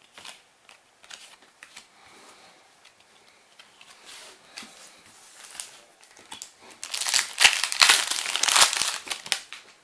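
Foil wrapper of a Yu-Gi-Oh booster pack crinkling in the hands as a pack is opened, soft rustling at first and then a loud stretch of crinkling from about seven seconds in until just before the end.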